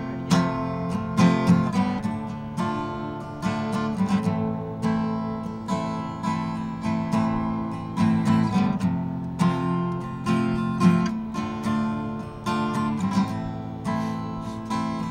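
Solo acoustic guitar playing a song's intro, chords struck in a steady, even rhythm.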